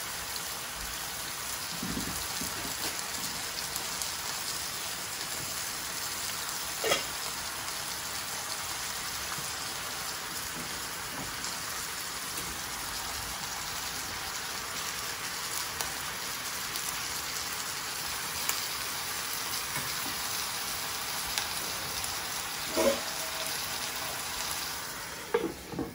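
Bok choy frying in a pan with a steady sizzle, broken by a few sharp clinks of utensils on the cookware. Near the end the sizzle drops in level as the pan is covered.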